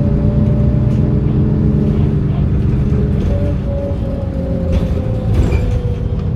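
MAN NM 243 city bus heard from inside: its six-cylinder D 0836 diesel and ZF Ecomat automatic gearbox running at a steady pace with a clear whine, which sinks slowly in pitch from about four seconds in as the bus eases off. A single click a little after five seconds.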